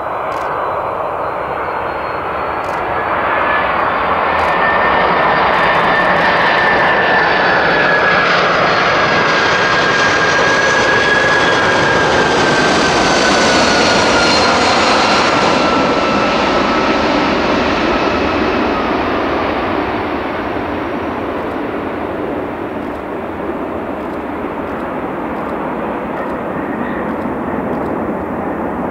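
Boeing 747-400 jetliner's four turbofan engines whining and rumbling as it passes low overhead on landing approach. The whine falls in pitch as the plane goes over, about halfway through, and the sound is loudest then before easing into a lower rumble as it moves away.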